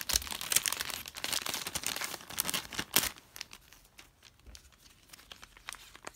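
Clear plastic wrapping and foil sheet-mask packets crinkling as the wrapping is pulled off: dense crackling for about three seconds, then only a few faint rustles.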